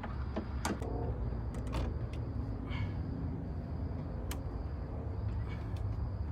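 A few sharp clicks and taps of parts being handled during the final fitting of a cold air intake, over a steady low rumble.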